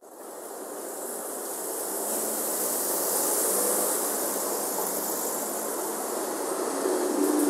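Busy city-street ambience at a station-front intersection: a steady wash of traffic and crowd noise with a strong hiss, fading in over the first two seconds.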